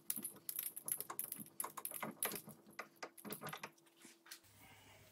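Quick, irregular metal clicks and clinks as a wheel-bearing puller's support bracket and pneumatic pulling cylinder are handled and seated against the hub's extraction plate. The clicking stops about four and a half seconds in.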